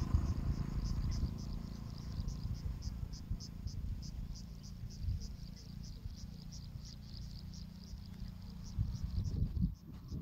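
An insect, cricket-like, chirping steadily at about three or four chirps a second, over a low gusty rumble of wind on the microphone.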